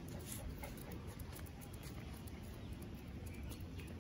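Faint footsteps on paving stones: light, scattered clicks and pats over a low, steady rumble.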